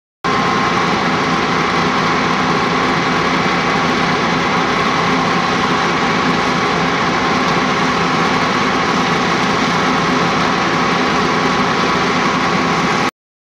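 Fire engine running steadily with a constant hum, as when its engine drives the pump feeding hose jets. It starts abruptly and cuts off suddenly near the end.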